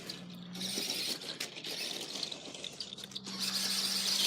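A toy RC car's small electric motor and gears whirring as it drives, with a faint steady low hum in stretches, getting louder near the end.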